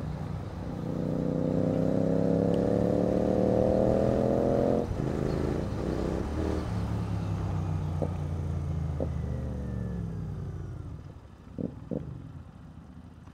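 Royal Enfield Continental GT 650's parallel-twin engine pulling up through the revs under throttle, then the throttle shuts off about five seconds in and the engine runs on lower, winding down as the motorcycle slows. Wind noise throughout, with a few short clicks near the end.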